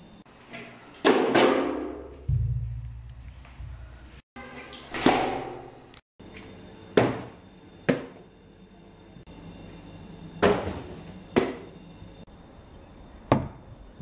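Partly filled plastic water bottles thudding down on hard surfaces as they land after being flipped: about seven sharp thumps spread out one by one, with a low rumble for a couple of seconds near the start.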